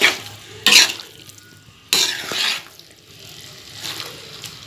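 A spatula scraping and tossing cooked penne in a metal kadai: four or so separate noisy stirring strokes, the loudest near the start and about two seconds in.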